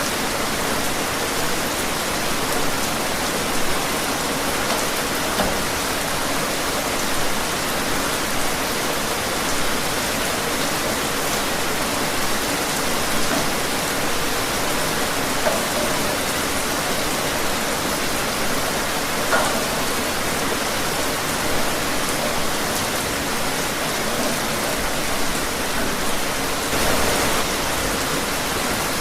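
Steady rain falling outdoors, an even hiss with scattered individual drops tapping on surfaces.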